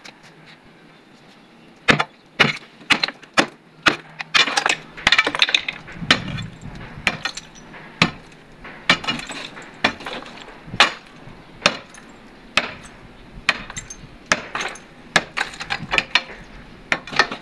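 A long bar rammed again and again into the concrete and tile front of a wall tomb niche to break it open: a string of sharp knocks and cracks, about one or two a second, starting about two seconds in.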